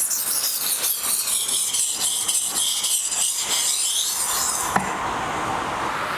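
Kitchen knife being sharpened on a coarse 400-grit Naniwa Chosera whetstone: quick, even back-and-forth strokes of the steel edge grinding on the stone. The strokes stop a little before the end with a single sharp tap.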